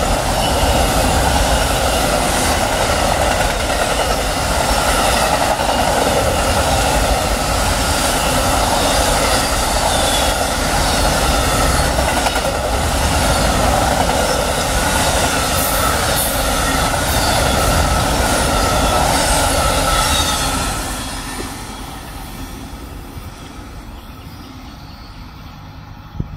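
Amtrak Auto Train autorack cars rolling past at speed: a steady, loud rush and rumble of steel wheels on rail. About 21 seconds in, the noise falls away to a faint fading rumble as the train moves off.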